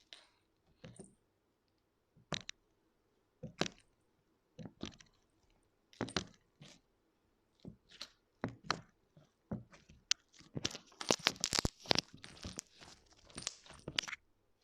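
Stretchy slime being pressed and folded by hand, popping trapped air bubbles. Scattered single pops give way about ten seconds in to a dense run of crackling pops.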